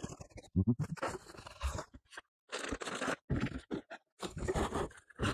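A cardboard box and its packaging being handled and opened: irregular crunching, rustling and scraping, broken by a brief gap about two seconds in.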